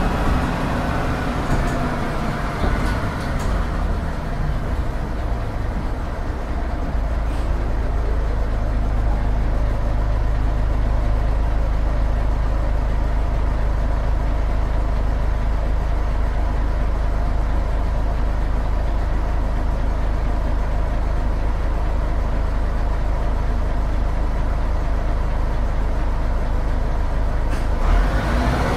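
Büssing DE 74 double-decker bus with its Büssing U10 underfloor diesel engine. Over the first few seconds the pitch falls as the bus slows. It then runs steadily at a low, even pitch, and near the end the pitch begins to rise again.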